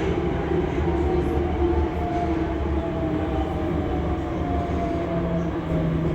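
Electric train running with a steady low rumble and a motor whine that slowly falls in pitch.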